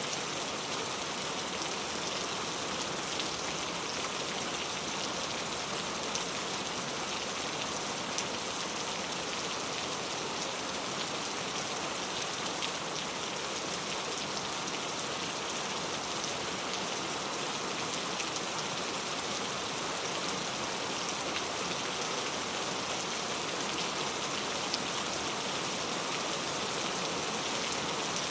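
Steady rain falling into a puddle: an even hiss of drops hitting the water, with scattered single drops ticking out now and then.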